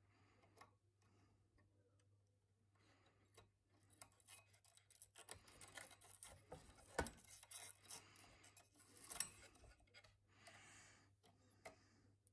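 Faint handling sounds of small work on an open power supply chassis: scattered light clicks and rubbing of wires and a hand tool, busiest in the middle, with two sharper clicks.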